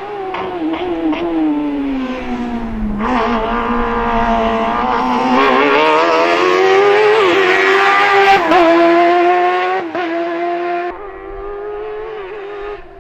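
Suzuki GSX-R 1000 inline-four motorcycle engine in a Fiat X1/9 slalom racer revving high. Its pitch falls as the car slows for the cones, then rises and wavers on and off the throttle through the chicanes. It is suddenly quieter and more distant near the end.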